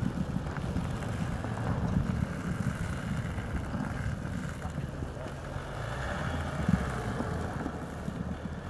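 Dodge Ram pickup's engine running under load as its tyres spin and churn through snow on an icy slope.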